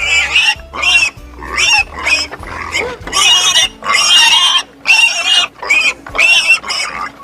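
Pig squealing in a rapid series of short, high-pitched calls, one or two a second, over faint background music.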